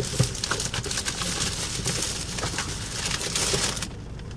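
A shopping bag rustling and crinkling as someone rummages through it: a dense, clicky crackle that stops shortly before the end.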